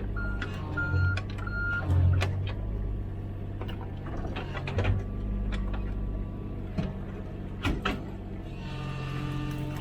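Komatsu PC16 mini excavator running steadily while digging, its engine note and hydraulics working under load. Sharp knocks and clanks from the bucket and arm come several times.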